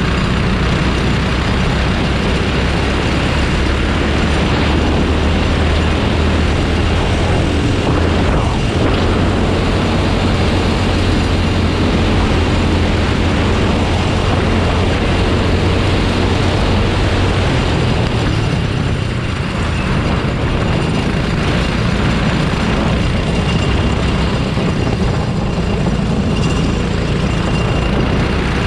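Go-kart engine running steadily at race pace, its note changing and dropping briefly about eighteen seconds in before picking up again.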